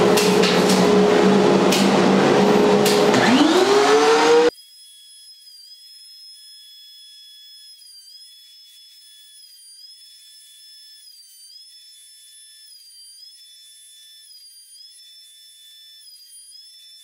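Dust collector and DeWalt thickness planer running loud, with a motor's rising whine about three seconds in. The machine noise cuts off abruptly after about four and a half seconds, leaving only faint, thin, high-pitched music.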